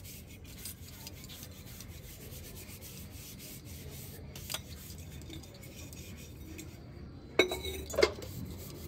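A brass pot is scrubbed by hand with cleaning powder, a steady gritty rubbing made of quick strokes. About halfway through there is a single light metallic ping. Near the end come two loud clanks of brass vessels knocking together.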